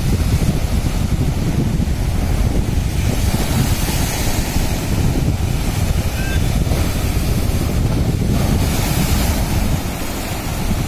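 Heavy surf breaking against a seawall of sand-filled geotextile bags, with wind buffeting the microphone. The wash swells into louder rushes of spray about four seconds in and again near nine seconds.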